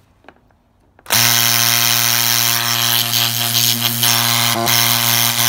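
A freshly rebuilt Gast rotary vane septic air pump switches on about a second in and runs with a loud, steady hum and an airy hiss. Its loudness is the sign that the vanes are seated correctly and the pump is building air pressure. A couple of light knocks sound near the end.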